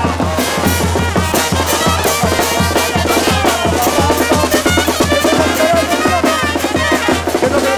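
Charanga street band playing: snare and bass drums keep a steady, fast beat under trumpets.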